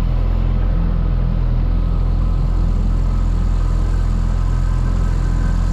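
Outboard motor on a small inflatable boat running at a steady low speed.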